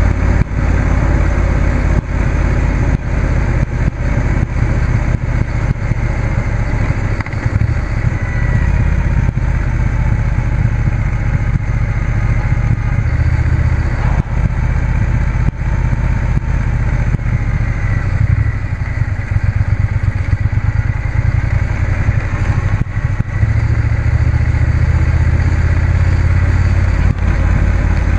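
Motorcycle engine running at road speed during a ride, under a heavy, steady low rumble of wind on the microphone. The engine pitch wavers slightly, and the loudness dips briefly now and then.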